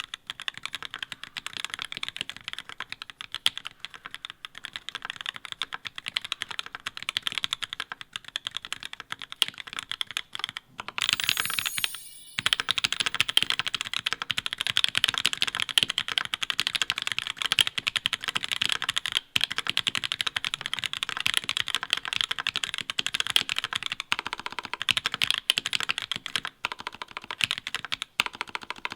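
Continuous fast typing on a mechanical keyboard fitted with Linworks LINx3 Retro keycaps: a dense run of quick key clacks, with a brief break about twelve seconds in.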